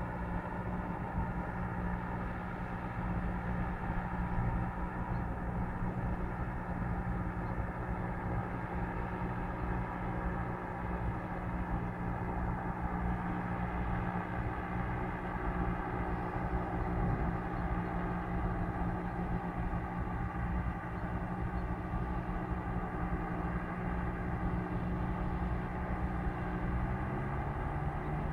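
Propeller engines of hot-air airships droning steadily, with a slight rise in pitch near the end.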